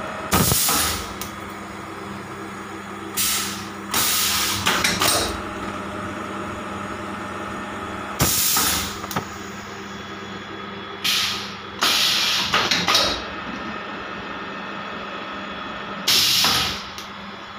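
HDPE bottle blow-moulding machine running, with a steady motor hum under repeated loud hisses of compressed air that come every few seconds, each lasting under a second.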